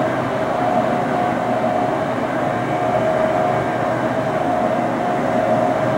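McDonnell Douglas DC-10's three jet engines at takeoff thrust during the takeoff roll: a steady roar with a steady whine running through it.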